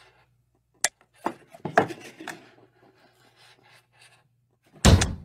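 Cartoon sound effects: a sharp click about a second in, then a few short rubbing, scraping noises, followed by a sudden loud hit just before the end.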